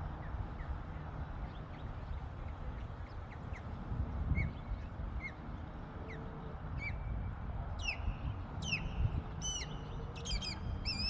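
A bird calling repeatedly in short, sharp cries that slide down in pitch. The calls grow louder and come faster over the last few seconds, with a low rumble of wind underneath.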